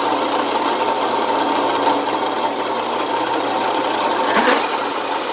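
Drill press spinning a hole saw through 3/8-inch meranti plywood, cutting round blanks: a steady whine with the rasp of the saw teeth in the wood.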